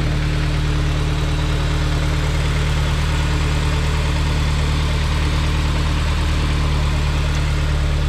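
Honda S2000's freshly rebuilt F20C2 2.0-litre inline-four idling steadily on its first run after the rebuild.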